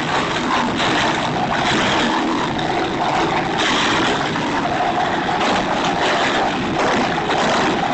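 Wood chipper running, a loud, steady engine and grinding noise with an uneven, churning texture.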